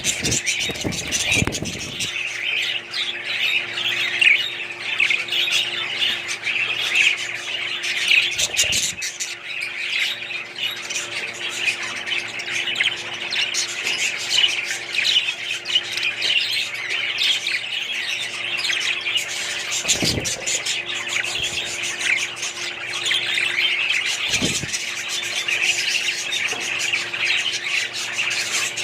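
A flock of small parrots, most likely budgerigars, chattering and squawking continuously.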